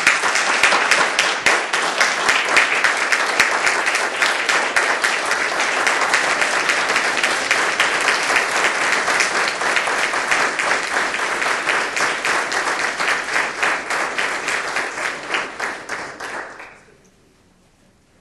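An audience applauding steadily for about sixteen seconds, then dying away.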